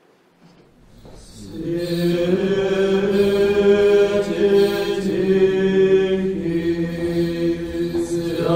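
Orthodox liturgical chant: voices singing long held notes, fading in from near quiet about a second in and then going on steadily with slow changes of note.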